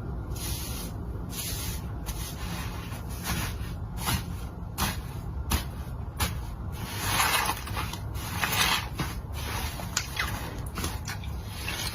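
Slime being squished and stretched: a run of irregular squelches and small crackling pops, with longer wet squishes about seven seconds in and again near nine.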